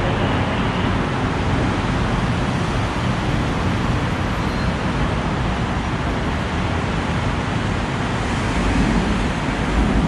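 Steady hum of city road traffic, an even noise with no distinct events, with a little more hiss near the end.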